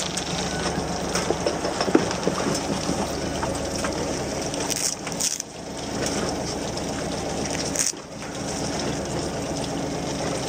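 Small fishing boat's engine running steadily with water rushing and splashing along the hull; the sound dips briefly twice, about halfway through and again a few seconds later.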